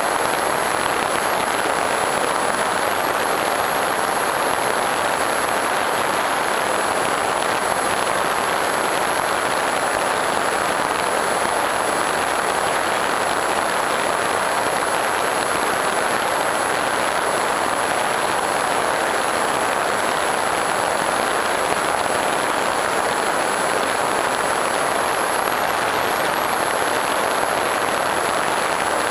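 Steady rushing drone of an FPV Raptor 1600mm electric pusher plane in flight, its propeller and airflow heard through the onboard camera's microphone, with a thin steady high whine above it.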